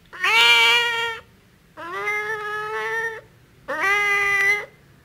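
A cat meowing three times, each meow about a second long and held at a fairly steady pitch.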